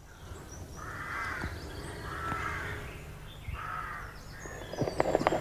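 Three harsh, hoarse bird calls about a second apart, each lasting about half a second. Near the end a quick run of light knocks starts.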